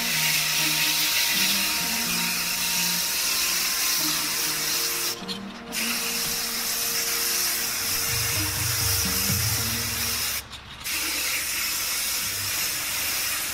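Aerosol spray-paint can spraying silver paint in long hissing passes, cut by two brief pauses about five and ten seconds in. Background music plays underneath.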